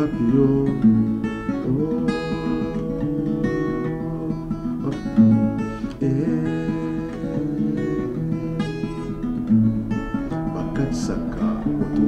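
Acoustic guitar strummed and picked in a steady rhythm, with a man's voice singing along at times.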